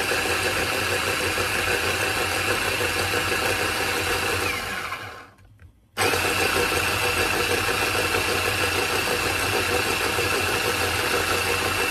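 Electric blender running at speed, grinding chiles and broth into a sauce, with a steady high whine over its motor noise. It winds down and stops about five seconds in, starts again a second later, and runs until it winds down near the end.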